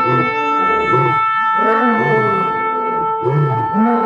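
Shofars blown together. One holds a long, steady, high note throughout, while lower short blasts swell and fall under it about once a second.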